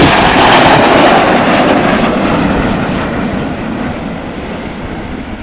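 Jet noise from a formation of BAE Systems Hawk jets, powered by Rolls-Royce Adour turbofan engines, passing overhead. It is loudest at the start and fades steadily as the jets fly away.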